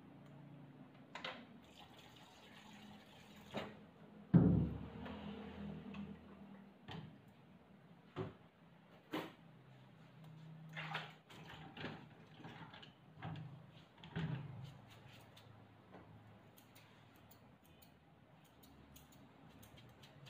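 Scattered clicks and knocks of small grooming tools being handled at the table, the loudest a single thump about four seconds in, over a faint low hum. Near the end come quick light clicks as scissors are brought to the dog's ear.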